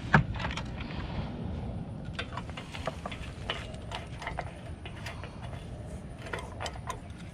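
Scattered light clicks and knocks, one sharper just after the start, over a steady low rumble: the Onan QG 4000 generator's oil dipstick being pulled out and pushed back in to check the oil level after refilling.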